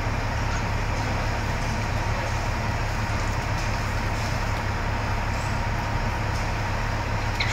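Steady drone of machinery running without a break, with a strong low hum under it. This is most likely the water-removal equipment being used to clear the flooded building.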